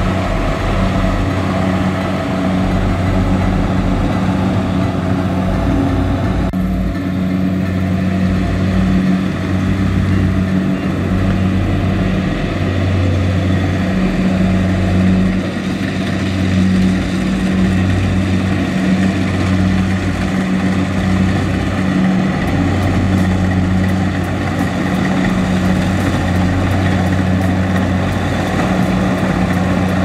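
Kubota DC-70 Plus rice combine harvester running as it cuts rice: a steady diesel engine drone with a low hum that swells and eases about once a second.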